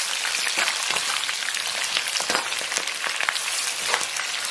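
Scallion and ginger pieces sizzling and crackling in hot oil and caramelized sugar in a wok, stirred with a metal ladle as they are fried until fragrant.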